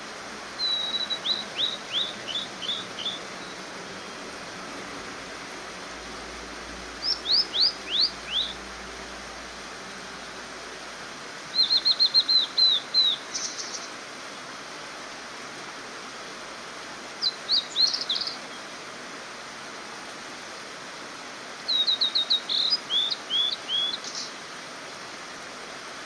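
Male blue-and-white flycatcher singing: five phrases a few seconds apart, each a quick run of high, clear notes that slur downward, over the steady hiss of a mountain stream.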